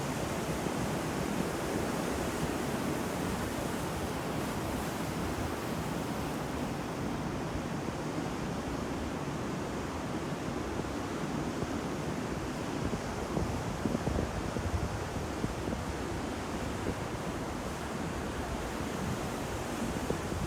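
Ocean waves breaking on a shore in a steady continuous wash of surf, with wind buffeting the microphone.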